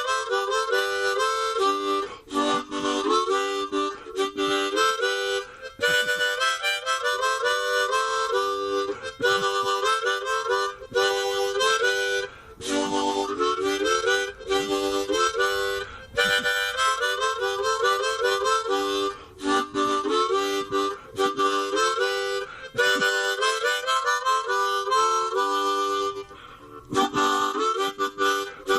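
Harmonica playing a bluesy tune, the background music laid over the video.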